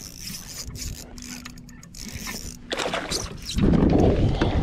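Handling noise on a fishing kayak: small scrapes and knocks of gear, then a loud low rumble that comes in suddenly about three and a half seconds in.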